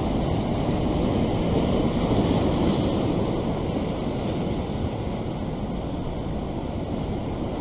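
Ocean surf breaking and washing over a rock ledge: a steady rush of churning white water that swells a little about two seconds in, then eases.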